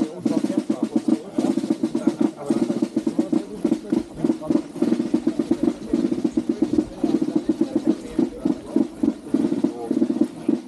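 Marching snare drums playing a steady, rapid rolling beat for a parade, the strokes running on without a break.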